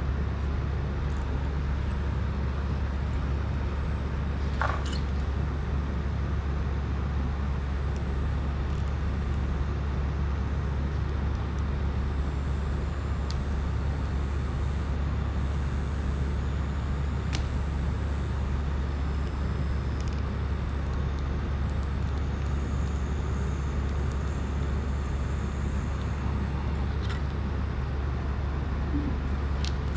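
Steady low hum over a constant hiss, with a few faint light clicks now and then.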